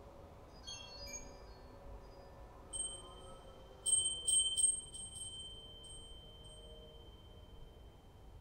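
Soft ambient chime music. A scatter of high chime notes comes about a second in, then a cluster of bright chime strikes around four to five seconds in, leaving one high tone ringing and slowly fading over a faint low sustained drone.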